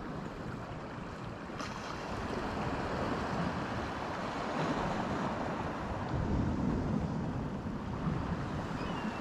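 Steady outdoor rush of wind and sea surf, with wind noise on the microphone; it swells a little past the middle.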